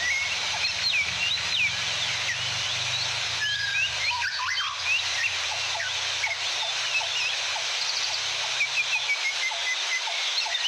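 Many small birds chirping and whistling in quick, overlapping calls over the steady rush of a waterfall. A low hum underneath stops about nine seconds in.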